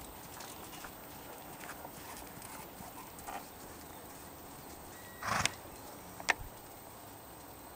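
Hoofbeats of a trotting Belgian Warmblood horse on sand arena footing, soft and faint. A short louder burst of noise about five seconds in, then a sharp click a second later.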